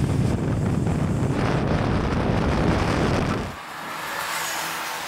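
Peugeot 205 GTI and turbocharged Suzuki Jimny accelerating flat out from a drag-race start: a loud, dense engine and wind rumble. About three and a half seconds in it drops to a quieter, more distant engine sound.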